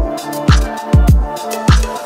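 Electronic background music with a deep kick drum that drops in pitch, hitting about twice a second over sustained synth notes.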